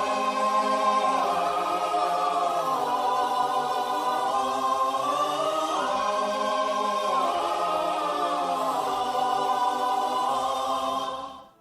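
Choir singing long held chords that shift slowly in pitch, fading out near the end.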